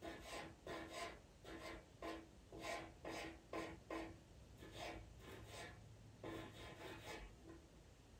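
Pastel pencil scratching over Pastelmat paper in quick short strokes, about three a second, with one longer rubbing stroke about six seconds in and fewer strokes near the end.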